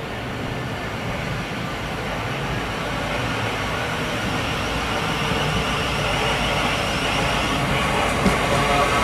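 Thameslink Class 700 electric multiple unit approaching along the line, its running noise on the rails growing steadily louder as it nears, with a faint whine coming in near the end.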